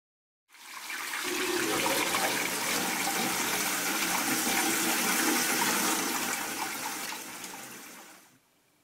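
Water rushing and gushing, swelling in over about a second, holding steady, then tapering away near the end.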